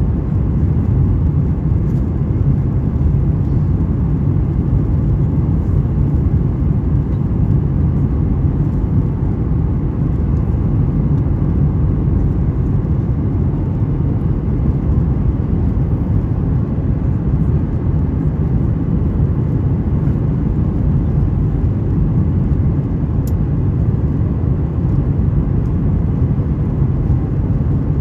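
Steady low cabin roar inside a Boeing 737-900ER, heard from a window seat by the wing on approach with the flaps extended: engine and airflow noise that holds even throughout.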